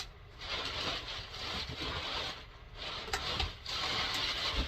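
Packing material rustling and scraping as hands rummage through a shipping box, in two long stretches with a short pause between.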